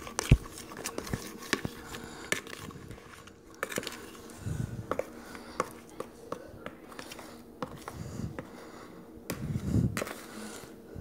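Glue slime being stirred and worked in a bowl with a utensil as it thickens from the contact solution: irregular clicks and taps of the utensil against the bowl with soft squishy handling, over a faint steady hum.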